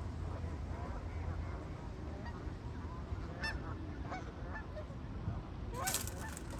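A flock of geese honking, many short calls overlapping, with one louder honk near the end.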